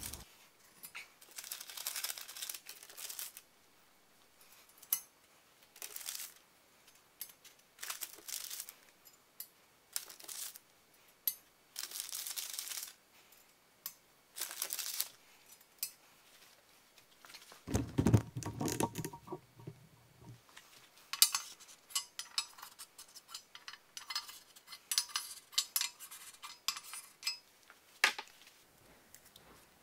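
Hands working with piston rings: paper ring packets rustling in short bursts, then quick light metallic clicks and clinks as compression rings are handled and set into the cast-aluminium cylinder bores. There is one louder dull knock about halfway through.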